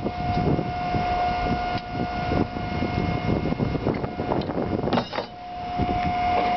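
A fishing boat's crane hoist and engine running: a low rumble under a steady whine, with a few knocks. The whine drops out for about half a second about five seconds in, then returns.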